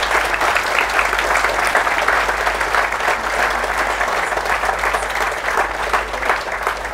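Audience applauding: dense, steady clapping from many hands that eases slightly near the end.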